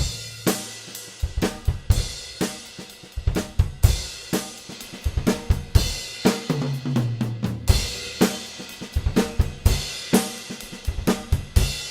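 Acoustic drum kit played in a steady groove: kick, snare, hi-hat and cymbals, with a fill down the toms about six and a half seconds in. It is a close studio recording through overhead condenser mics, with separate mics on the kick and snare.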